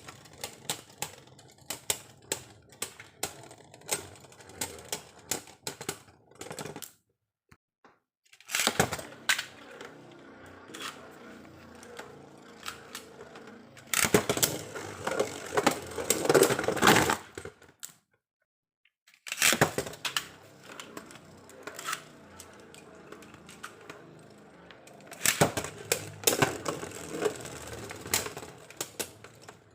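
Plastic and metal Beyblade spinning tops clattering and clicking against each other in a plastic stadium, in repeated clashes with louder stretches of rapid collisions; it stops abruptly twice.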